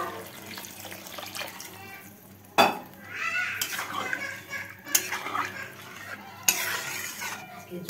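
A cooking spoon stirring a sauce in a pan, scraping and clattering, with three sharp knocks against the pan's rim or side.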